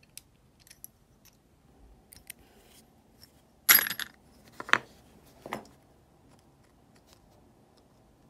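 Steel drill bits and small metal parts clinking against each other in a clear plastic box: a few light ticks, then a loud metallic clatter about three and a half seconds in, followed by two shorter clinks within the next two seconds.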